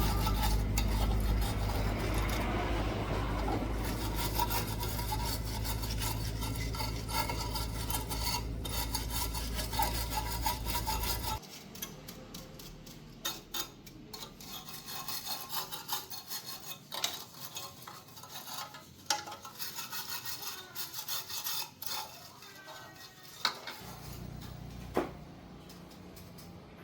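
Rubbing and scraping of hand work, over a loud steady low hum that cuts off abruptly about eleven seconds in. After that come quieter scraping and scattered clicks.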